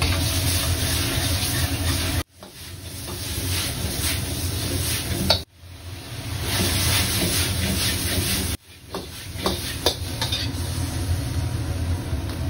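Stir-frying in a carbon-steel wok on a gas wok burner: the burner's low roar under the hiss and sizzle of food and sauce in hot oil, with the metal ladle scraping and knocking against the wok. The sound breaks off abruptly and starts again three times, and a few sharp knocks come about two-thirds of the way through.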